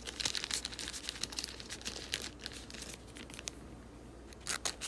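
Thin plastic crinkling and crackling as a trading card is handled, dense for the first couple of seconds, then sparser, with a few sharper ticks near the end.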